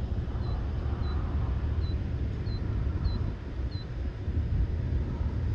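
Killdeer repeating a short, high call note about once every two-thirds of a second, stopping about four seconds in, over a steady low rumble.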